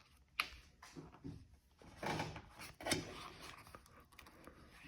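Handling noises as rubber weather stripping and its plastic retaining studs are worked off a car door: a sharp click about half a second in, then brief scraping rustles around two and three seconds in.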